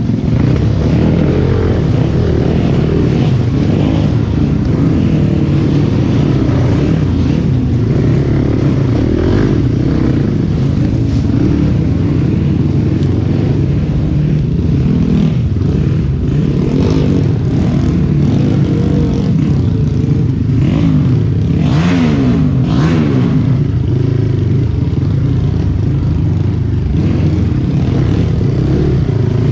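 Trail motorcycle engine running continuously while being ridden. Its pitch rises and falls with the throttle about two-thirds of the way through, and a few knocks and clatters come over it.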